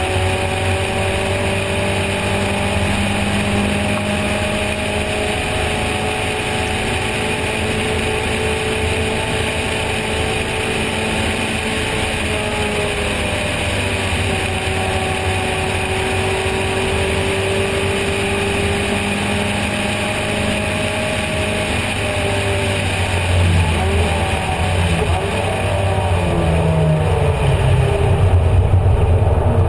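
Onboard sound of an open-cockpit racing car's engine running hard under load, with wind rush in the open cockpit. The engine pitch climbs and drops through gear changes, and toward the end the revs move up and down as the car is worked into a corner.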